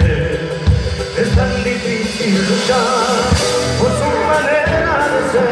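Live band playing through a PA: a male lead voice singing a wavering melody over strummed guitars, bass notes and a drum kit.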